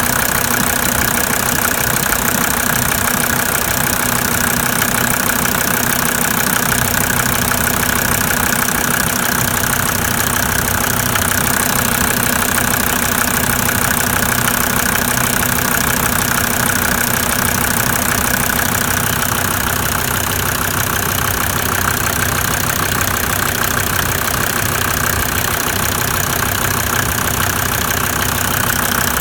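Mercedes-Benz W124's OM605 five-cylinder diesel idling steadily, with the uneven, rough running and knocking that persists after new injector nozzles and new original injection-pump lines; the owner has not found the cause.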